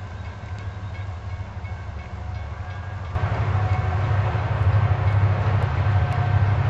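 Diesel locomotive approaching from a distance: a low engine rumble that grows louder from about three seconds in.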